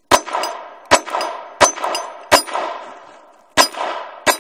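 Ruger LCP II .22 LR pistol firing six shots: four evenly spaced about 0.7 s apart, then a pause of about a second and two more. Each crack trails off in a short ringing echo.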